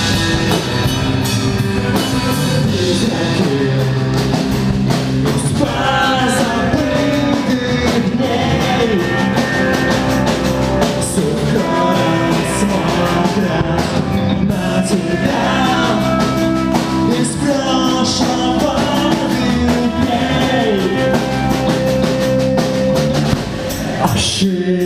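Rock band playing: drum kit, guitars and bass, with pitched lines sliding up and down over the top. The music briefly drops away just before the end.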